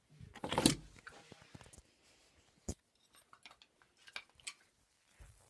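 Handling noise from the recording camera being grabbed and picked up: a loud rustle and bump about half a second in, then a sharp click and scattered small knocks and taps as it is held and moved.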